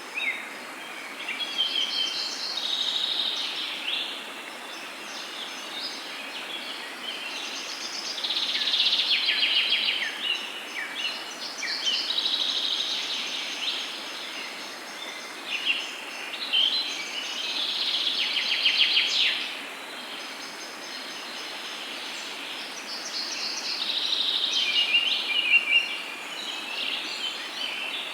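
Outdoor nature ambience of songbirds singing: phrases of chirps and rapid runs of notes come back every few seconds, over a steady background hiss.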